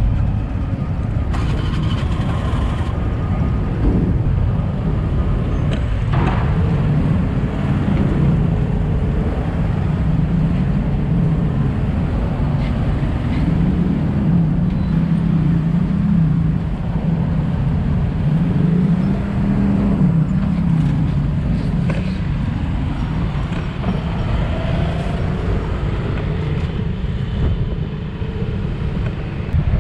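A vehicle engine running over a steady low rushing noise, its hum wavering up and down in pitch.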